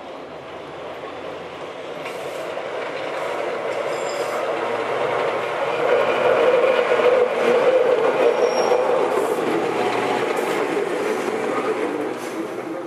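Heritage tramcar running along the track toward and past the listener: a growing rumble of steel wheels on rails with a few clicks, loudest about halfway through and falling away near the end.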